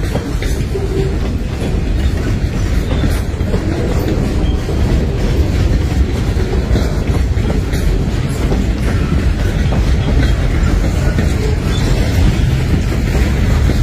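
Freight train of boxcars and bulkhead flatcars rolling past at close range: a steady, loud rumble of steel wheels on rail, with scattered clicks as the wheels cross rail joints.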